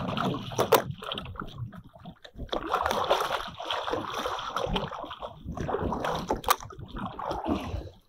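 Sea water splashing and sloshing against the side of a small boat, with a couple of sharp knocks, one about a second in and one near the end.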